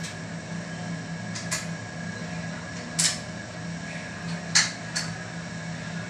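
Sharp clicks and knocks from parts being handled inside a ceiling-mounted air-conditioner unit, five or so in all, the loudest about four and a half seconds in, over a steady background hum.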